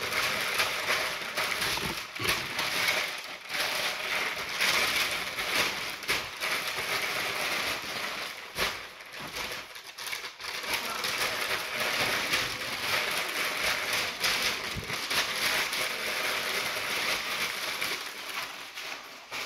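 White packing paper crinkling and rustling continuously as a candlestick is wrapped in it by hand, a dense crackle of many small crisp clicks.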